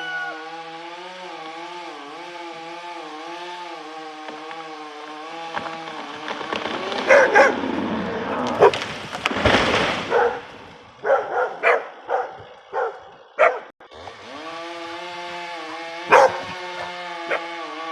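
A dog barking in short, sharp calls, scattered at first and then in a quick run between about eleven and fourteen seconds in. Behind it is a steady, wavering hum, with a louder rush of noise swelling and fading in the middle.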